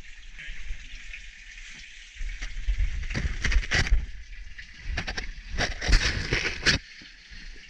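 A caver's suit and gear scraping and rustling against rock while crawling through a tight cave squeeze, with a few sharp knocks. The scraping is quiet for the first two seconds, then comes in irregular bursts until near the end.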